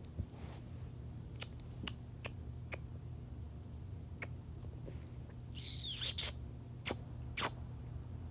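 Sharp, high squeaky chirps and scattered light clicks: kissing squeaks and tongue clicks used to coax a cat out of hiding. About five and a half seconds in, one longer squeak glides down in pitch.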